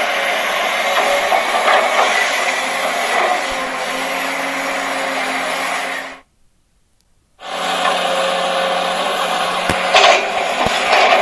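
Toy excavator's small battery motor and plastic gears whirring steadily. It cuts out suddenly about six seconds in, then starts up again a second later.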